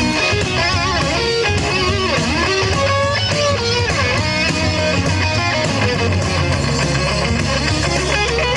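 Live rock band in an instrumental break: an electric guitar plays a lead line with wavering, bent notes over bass guitar and drums.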